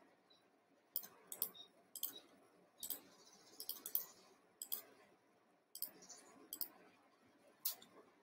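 Faint, irregular clicking of a computer mouse and keyboard, about a dozen sharp clicks spread over several seconds, as a code is copied, entered into a form and submitted.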